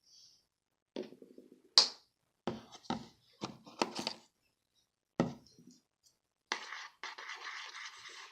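Hand-handling noises: a string of sharp clicks and knocks, the loudest a snap just under two seconds in, then a couple of seconds of steady scraping near the end.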